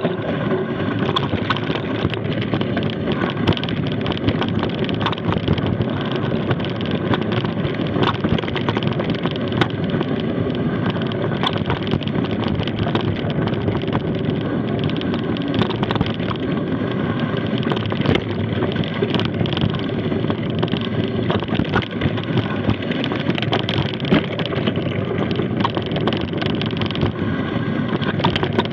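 Mountain bike coasting fast down a steep gravel track: a steady rush of tyre noise on loose stones, with constant sharp clicks and rattles of the bike over the bumps and wind noise on the microphone.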